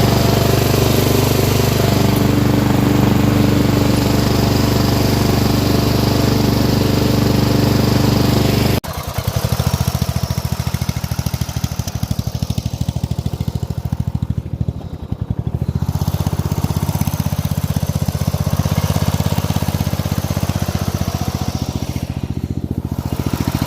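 Toro lawn tractor's engine running steadily under load; about nine seconds in the sound cuts to a different take, where the engine's firing beat comes through as an even, rapid pulsing.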